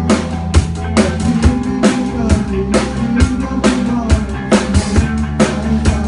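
Live band music: a drum kit keeps a steady beat of kick and snare hits, about two a second, over sustained bass and guitar notes.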